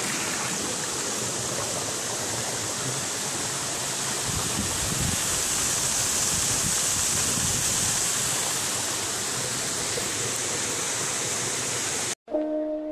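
Small waterfall rushing over rocks close by, a steady hiss of pouring water. A second before the end it cuts off abruptly and music begins.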